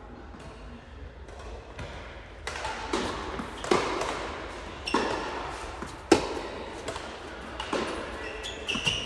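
Tennis ball struck back and forth in a rally: sharp racquet hits, about one a second, beginning about two and a half seconds in.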